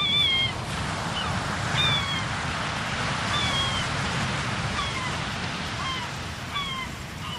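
Recorded seashore sound effect: a steady wash of ocean waves with seagulls crying, short falling calls about once a second.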